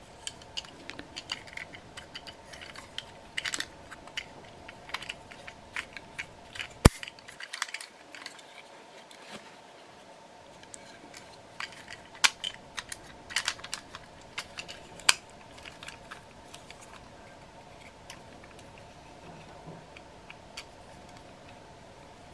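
Hard plastic parts of a vintage G1 Transformers toy clicking and clattering as it is handled, with irregular taps that thin out in the second half and one sharp click about seven seconds in. A faint steady hum runs underneath.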